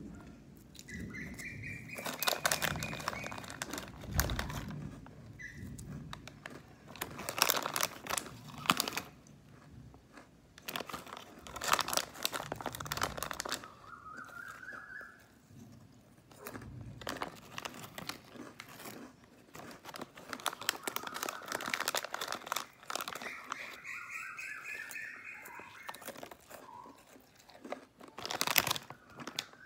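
Plastic snack-biscuit packet crinkling as a hand rummages in it and shakes it, with the crunch of small cracker biscuits being bitten and chewed. Birds chirp in the background a few times.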